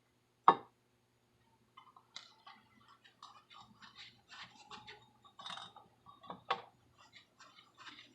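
Hand work on the metal parts of a bench grinder: a sharp knock about half a second in, then a run of small irregular clinks and rattles, and another knock near the end, over a faint steady hum.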